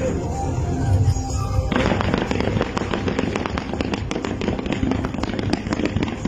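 Fireworks crackling in a dense, rapid run of sharp pops, starting about two seconds in, over background music.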